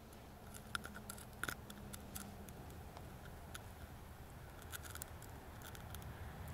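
Faint, scattered metal clicks and ticks of long-nosed forceps gripping a lure's hooks in a small pike's mouth during unhooking.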